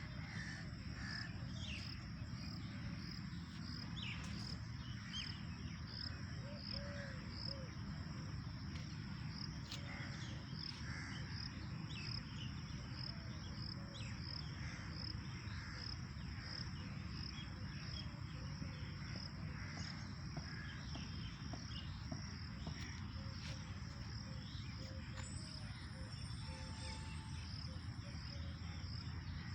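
Outdoor park ambience. An insect chirps in a steady, even pulse, scattered short bird calls come and go, and a low steady background rumble runs underneath.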